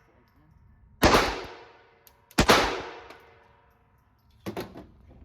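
Walther PPK/S .22 LR pistol firing two shots about a second and a half apart, each a sharp crack with a short fading echo, followed by a fainter crack near the end.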